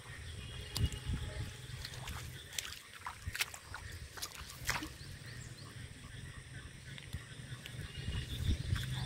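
Soft footsteps and rustling through wet, waterlogged grass, with scattered small clicks and a steady low rumble; the handling noise grows a little louder near the end as the fish is picked up.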